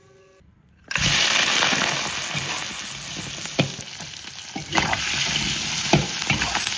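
Blanched pig's trotters going into hot leftover frying oil: a loud sizzle bursts in about a second in and keeps going as they are stirred, with a few knocks of the stirring utensil against the pan.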